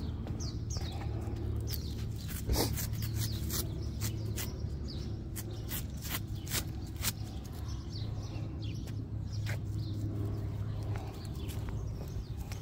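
Small birds chirping in short, falling calls over a steady low hum, with many light, irregular clicks.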